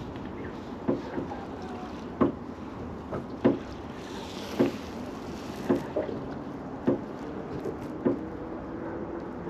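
Small boat rocking at sea: a steady rush of wind and water, with about seven sharp knocks from the boat at a fairly even pace, roughly one every second and a quarter.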